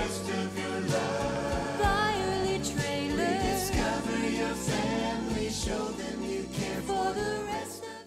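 Outro music with singing voices over a steady beat and bass line, fading out near the end.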